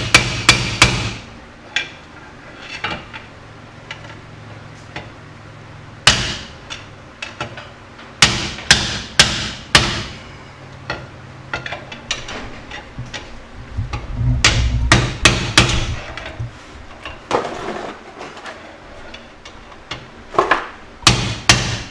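Hand hammer striking a steel bar used as a punch to drive a pinion bearing race out of a Dodge 9 1/4 rear differential housing: sharp metal-on-metal blows in bursts of several, about two a second, with pauses between bursts. The races are badly worn and are being knocked out for replacement.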